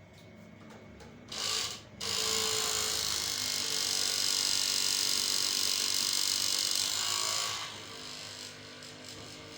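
A small electric motor buzzing: a brief burst about a second and a half in, then running steadily for about five seconds before dropping to a quieter hum.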